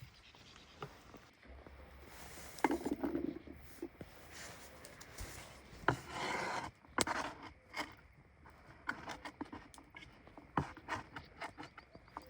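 Wood being rubbed and scraped by hand, with scattered light knocks and clicks and two longer scrapes.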